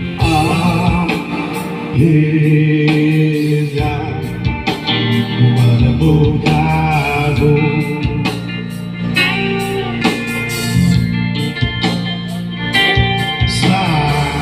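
Music: a voice singing a wavering melody over instrumental accompaniment with a steady bass line.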